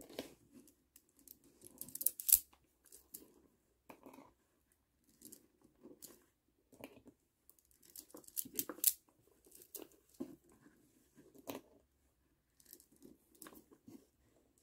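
Plastic pony beads clicking against each other as they are picked up and threaded onto string, with light handling rustles between the clicks. The sharpest clicks come about two seconds in and in a cluster around eight to nine seconds.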